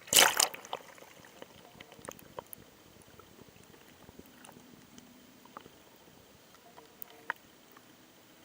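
A diver in mask and fins jumping into the sea: one big splash at the very start, lasting about half a second, then faint scattered drips and small water sounds.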